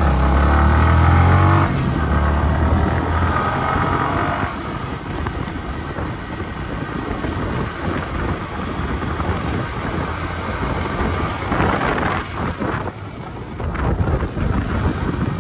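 Yamaha sport motorcycle riding at speed. Its engine's steady drone is plain for the first few seconds, stepping down about two and three and a half seconds in. After that, wind buffeting on the microphone covers most of the sound, with a stronger gust near the end.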